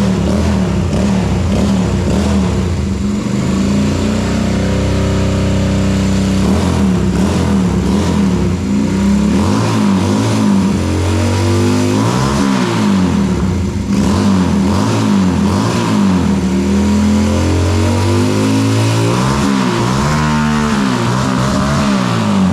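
Yamaha Virago 250's air-cooled V-twin running with its timing corrected, revved up and down several times from idle, with quick sharp blips about halfway through and again near the end.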